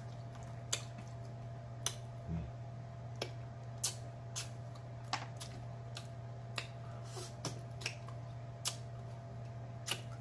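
Close-miked chewing of roasted turkey wing meat: wet lip smacks and mouth clicks at an irregular pace, about one to two a second, over a steady low hum.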